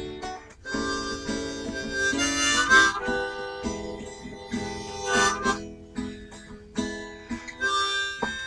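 Harmonica played with cupped hands, holding and bending notes, with a guitar accompanying.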